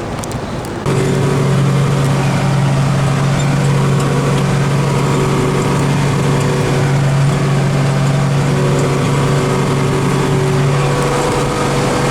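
Heavy farm machinery's diesel engine running steadily under load, a constant drone; it comes in abruptly and louder about a second in.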